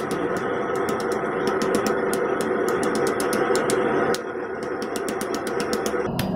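Hand hammer striking hot steel on an anvil in rapid blows, about six a second, over a continuous dense drone.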